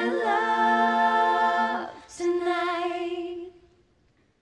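Pop song playback: a singing voice holds a long note with almost no accompaniment, breaks off about two seconds in, holds a second note that fades away, and the track drops to near silence near the end.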